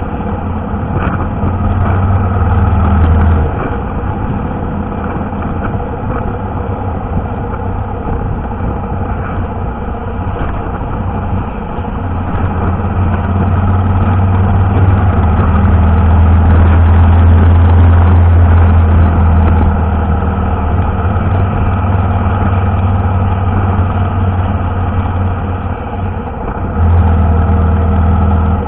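Motorcycle engine and road noise while riding in traffic: a steady low engine drone that swells louder three times, longest in the middle.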